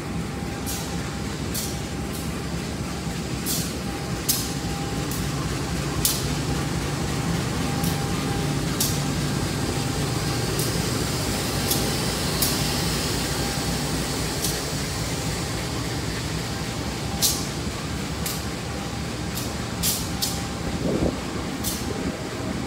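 Passenger train running: a steady rumble and hum with sharp clicks every second or so.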